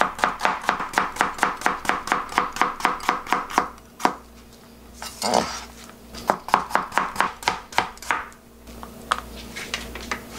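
Chef's knife slicing a Korean zucchini on a plastic cutting board: a quick, even run of chops, about five a second. After a pause with one knock and a short brushing swish, a second, looser run of chops follows.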